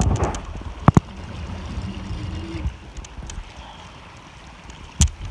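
Shallow stream water running and rippling, over a low rumble. Two sharp knocks come, one about a second in and one near the end.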